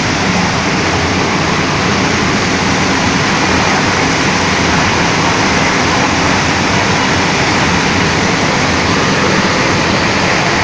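Vertical sump pump running: a steady, loud rush of water and motor noise that does not change.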